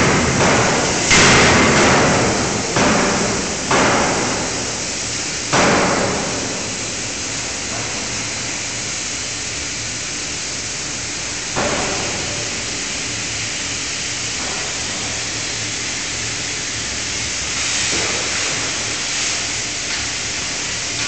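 5-tonne fully hydraulic closed-die forging hammer striking hot metal between its dies: four heavy blows in the first six seconds, each ringing out, then one lighter knock about halfway through, over a steady background noise.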